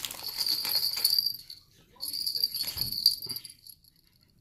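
Small jingle bells on a clip-on fishing rod bite-alarm bell jingling as they are handled, in two bouts of about a second and a half each with a short pause between.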